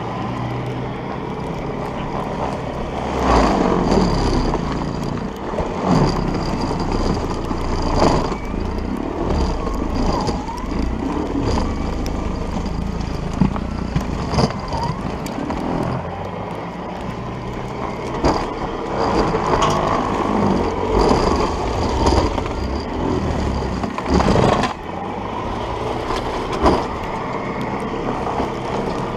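Electric-converted MTD 3/21 snowblower running under load, its motor and auger churning through deep snow and throwing it out of the chute. The sound swells and eases several times as the machine bites into the heavier drifts, with a few short knocks.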